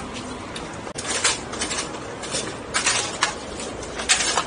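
Metal utensils clinking and scraping against a stainless-steel food tray and bowls, in about eight short, sharp knocks over a steady background murmur.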